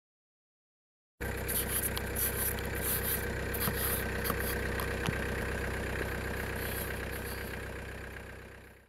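Plastic ice scraper rasping over a frosted car windshield in quick repeated strokes, over the steady hum of an idling car engine. The sound starts suddenly about a second in and fades out near the end.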